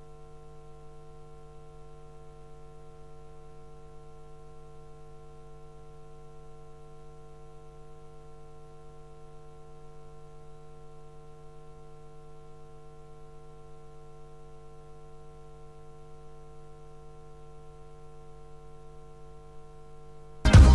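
Steady electrical mains hum, a low buzz with no change for about twenty seconds; music cuts in abruptly at the very end.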